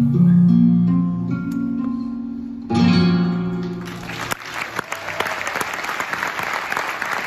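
Acoustic guitar playing the closing notes of a song, then a single strummed chord that rings out and fades. About four seconds in, the audience breaks into applause.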